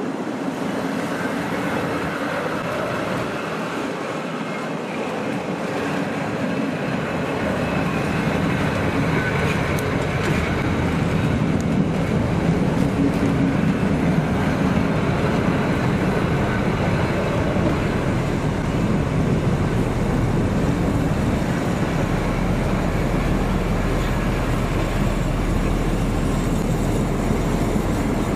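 SU46 diesel locomotive shunting with a rake of passenger coaches: the engine running with rail and wheel noise. It grows louder over the first third, and a steady deep low hum joins about two-thirds of the way in.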